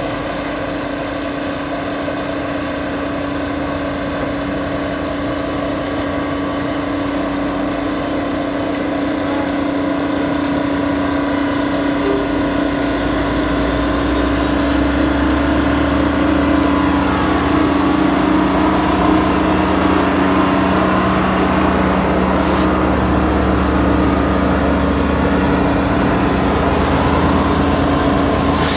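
Diesel engines of a Jordan ballast spreader and the locomotive pushing it, running steadily as the work train plows along the track and approaches. The sound grows steadily louder, with a constant hum throughout and a deep rumble joining about halfway through.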